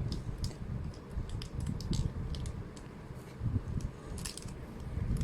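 Plastic pieces of a 3x3 speedcube, built from mismatched big and small pieces of two cubes, clicking and clacking irregularly as it is turned by hand, with dull bumps of handling. The cube is extremely hard to turn.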